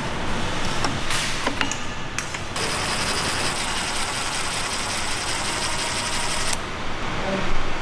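A ratchet wrench clicking rapidly as bolts are worked loose. From about two and a half seconds in, a power driver on a long socket extension runs steadily for about four seconds, spinning out the crankshaft main bearing cap bolts. There are more clicks near the end.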